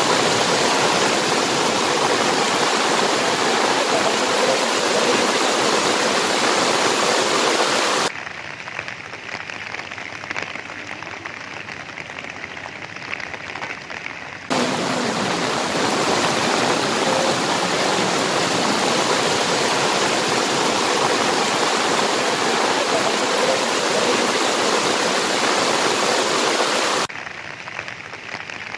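Rushing floodwater: an even, loud noise of fast-flowing water. About eight seconds in it cuts abruptly to a quieter, duller hiss, comes back just as abruptly some six seconds later, and drops again near the end.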